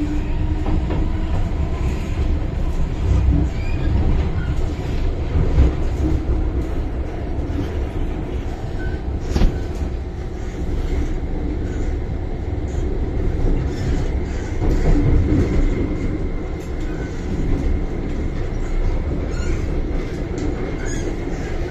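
MTR Island Line M-Train heard from inside the car while running: a steady rumble of wheels on rail and running gear, with one sharp click about nine and a half seconds in.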